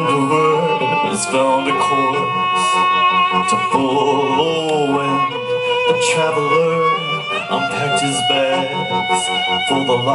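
Live music: a man singing into a microphone, accompanied by accordion and violin.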